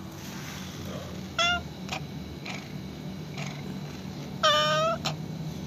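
A sick black cat meowing twice: a short meow about a second and a half in, then a longer, louder one near the end. The cat is very ill, has stopped eating and is breathing with difficulty.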